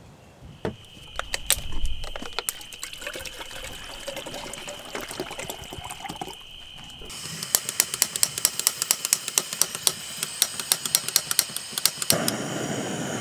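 Water poured from a plastic bottle into an integrated canister stove's cooking cup, then a rapid run of sharp clicks as the stove's igniter is worked, and near the end the gas burner catches and runs with a steady rushing sound.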